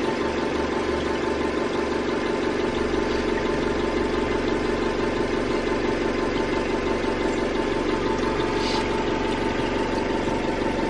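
Freshly swapped-in engine of a BMW E46 330i idling steadily just after its first start, left running to warm up and clear out the exhaust.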